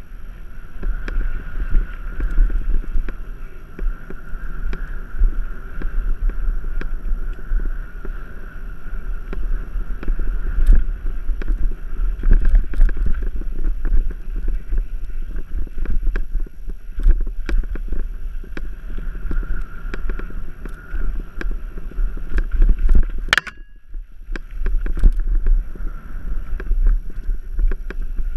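Wind buffeting a bike-mounted action camera's microphone, over the rumble of mountain bike tyres on a dirt singletrack and a steady rattle of clicks and knocks from the bike over rough ground. About 23 seconds in, a sharp click is followed by a brief drop in the noise before the rumble returns.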